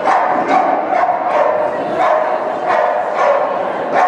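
Dog barking over and over in a quick, steady rhythm, about two barks a second, echoing in a large indoor arena.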